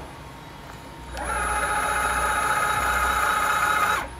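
A milling machine's cutter machining a metal part clamped in a vise gives a steady high-pitched whine. It starts about a second in and cuts off abruptly near the end.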